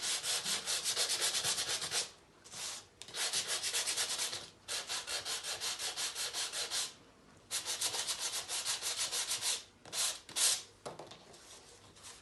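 Sanding block rubbed in quick back-and-forth strokes over embossed pattern paper mounted on cardstock, in several runs broken by short pauses. The sanding scuffs the raised embossing so the white of the paper comes through.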